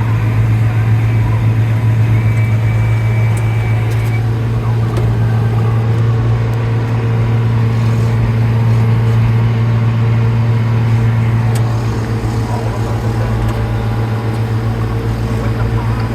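Farm tractor engine running steadily while mowing hay, a strong low drone; it gets slightly quieter about twelve seconds in.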